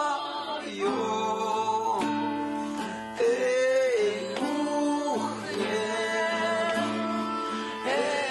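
Singing with acoustic guitar accompaniment, a man's voice leading in long held notes.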